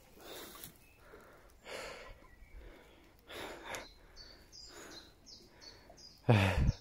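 A person breathing hard, several slow audible breaths, while a small bird chirps repeatedly, about three short high notes a second, in the second half. Just before the end a short, loud voiced grunt.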